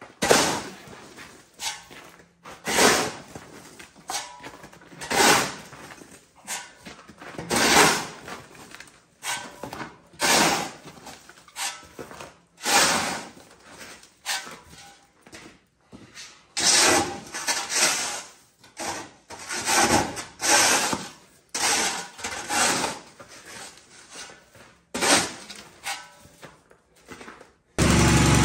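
Snow shovel blade scraping across a concrete driveway, pushing and tossing snow in a series of short strokes, about one every second or so. Near the end, this gives way suddenly to a snowblower engine running steadily.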